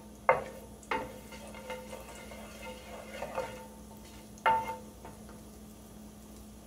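A spoon stirring cumin seeds in a skillet of hot oil, knocking against the pan three times, twice near the start and once past the middle, so the pan rings briefly each time. Between the knocks the seeds sizzle faintly in the oil as they start to crackle.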